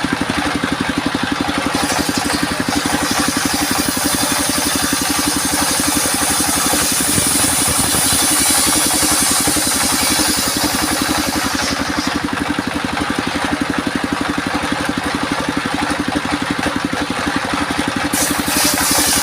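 Homemade engine-driven circular sawmill running with a steady pulsing engine beat. The blade cuts through albasia (sengon) wood from about two seconds in to about twelve, adding a high hiss, and a new cut begins near the end.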